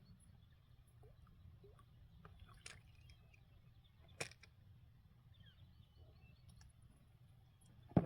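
A low steady rumble with a few sharp knocks, the loudest about four seconds in and another right at the end.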